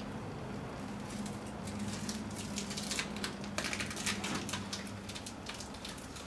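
Blue painter's tape being peeled off a rough wooden beam, crackling and ripping in an irregular run of small pops, over a faint low hum.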